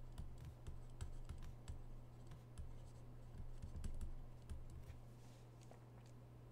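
Faint, irregular clicks and taps of a stylus on a drawing tablet during handwriting, over a steady low electrical hum. The clicks thin out after about five seconds.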